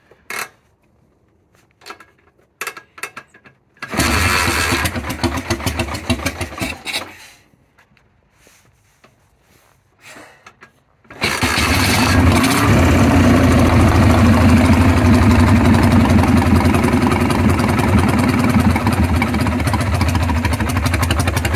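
1965 Marusho ST500's BMW-style flat-twin engine with loud megaphone exhaust pipes, being started. After a few small knocks it fires about four seconds in and runs for about three seconds before dying. A few seconds later it catches again and keeps running, loud and steady.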